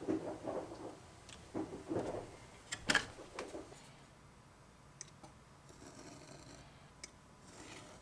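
Edge of Pueblo leather being sanded by hand on a sandpaper-wrapped sanding stick: a run of short rasping strokes, then a sharp click about three seconds in, the loudest sound. After that, a few light ticks and faint scratching as a pointed tool is drawn along a steel ruler over the leather.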